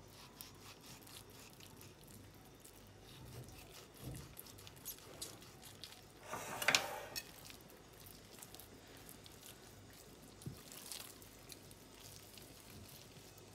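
Faint, wet squishing of hands pressing and rubbing a thick spice paste into slits cut in a raw lamb shoulder, with small clicks and one louder squelch a little past halfway.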